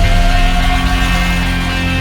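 Loud background music: rock-style track with sustained, held chords.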